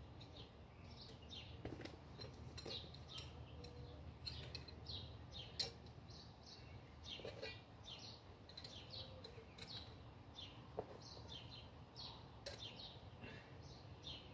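Small birds chirping over and over in quick, short, falling notes. A few light clicks and knocks, the sharpest about five and a half seconds in, as the target plates are fitted back onto the arms of a Texas Star spinner target.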